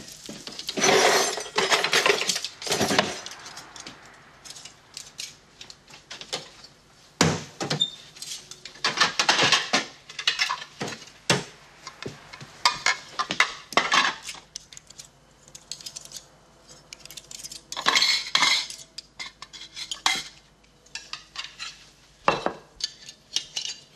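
Crockery plates and cutlery clinking and clattering as a meal is served, with irregular knocks and a few longer bouts of clatter.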